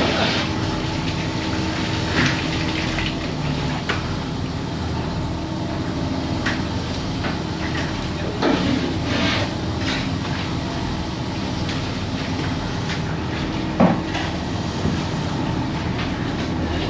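Fishing boat's engine running steadily, with a handful of clanks and knocks from wire-framed cuttlefish pots being handled and stacked on the steel deck; the sharpest knock comes near the end.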